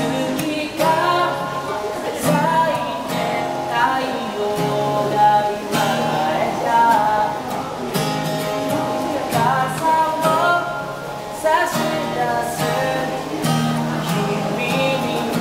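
Acoustic guitar strummed in chords, with a man singing a song over it.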